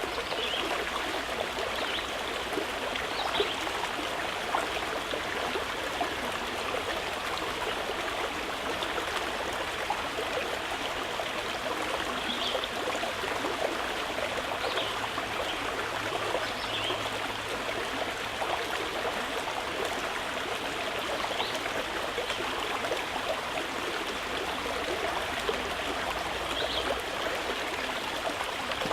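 Water flowing and trickling steadily over stones, like a small stream, with constant small splashes and gurgles.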